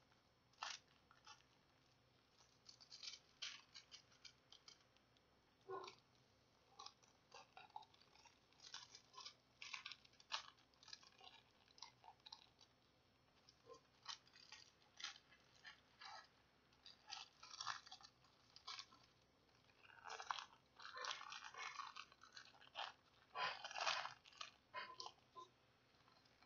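Doubled-over aluminium foil crinkling in short, irregular crackles as gloved hands fold its sides up tight around a printed circuit board, the busiest and loudest stretch coming near the end.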